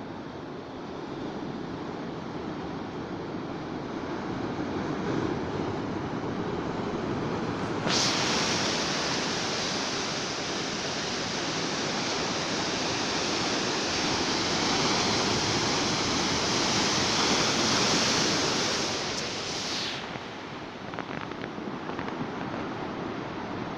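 Sea waves breaking and washing on the shore, a steady rush that turns suddenly louder and hissier about a third of the way in and falls back near the end.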